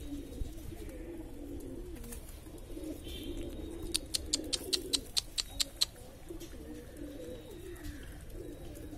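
A flock of pigeons cooing, many low calls overlapping. About four seconds in, a quick run of about ten sharp clicks over roughly two seconds stands out as the loudest sound.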